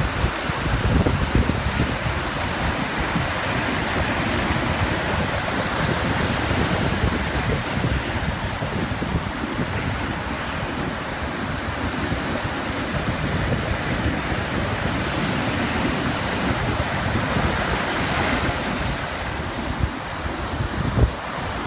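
Small ocean waves lapping on a beach, with wind buffeting the microphone.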